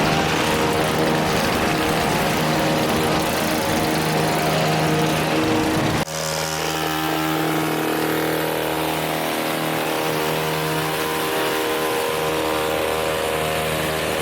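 Gas hedge trimmer engines running steadily at working speed while cutting a cedar hedge. The engine note changes abruptly about six seconds in.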